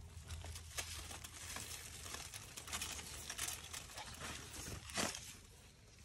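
Rough cucumber leaves and vines rustling and crinkling as a hand pushes through them to pick a cucumber, with irregular crackles and one sharper click about five seconds in.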